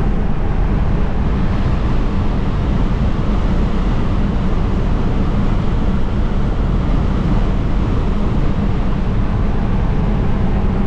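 1965 Ford Falcon driving at highway speed: a steady, even mix of engine drone and road and wind noise, with the car running smoothly.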